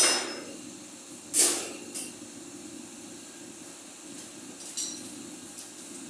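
Milling machine running with a steady hum while the cutter works on a roller. Sharp metallic hissing bursts come at the start and about a second and a half in, with fainter ones after.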